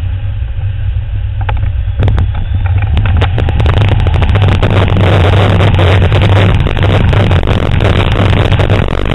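Wind rushing over the microphone of a camera mounted on a tandem hang glider in flight: a steady low rumble that turns louder and rougher, with crackling buffets, from about two to three seconds in.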